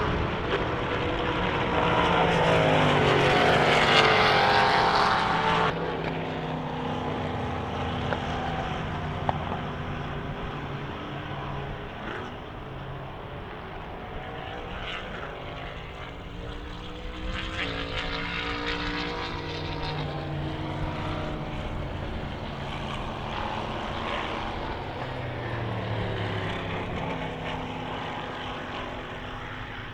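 Endurance race cars running at speed on the circuit, engines revving up and down through the gears as they pass. A loud close pass in the first few seconds breaks off suddenly about six seconds in, and more distant cars follow with rising and falling engine notes.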